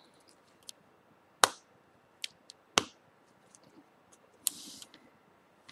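Small plastic smartphone parts clicking and tapping as they are handled and fitted into a Samsung Galaxy S4's frame: scattered sharp clicks, two louder ones about a second and a half apart, and a brief scrape about three-quarters through.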